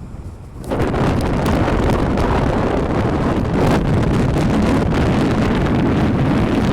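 Strong gusting wind blasting across a phone's microphone: loud, rumbling wind noise that jumps up suddenly under a second in and stays loud.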